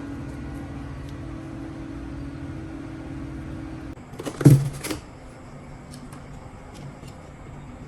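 A small motor hums steadily, then stops about halfway through, followed by a brief clatter of knocks and a fainter steady background.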